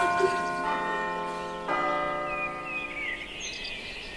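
Bells ringing: two more strikes land about half a second and a second and a half in, each sounding several notes at once, and the ringing fades slowly. Birds chirp faintly over the fading ring in the second half.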